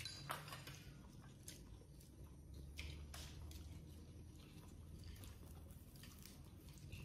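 Faint eating sounds: soft chewing and a few light clicks of chopsticks against the fish plate and bowls.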